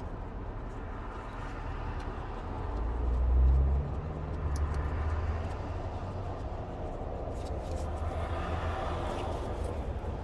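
A motor vehicle running close by: a low rumble that swells to its loudest about three seconds in, then settles into a steady drone.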